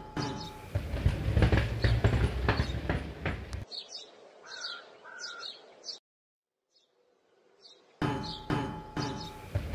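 Rolling-ball sound effects: a quick series of knocks and clicks over a low rumble for about four seconds, then fainter chirping, then a couple of seconds of silence before the same sequence starts again about eight seconds in.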